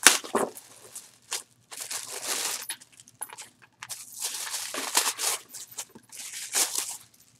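Plastic packaging crinkling and rustling in several bursts as a bag is unwrapped by hand, with a sharp crackle at the start.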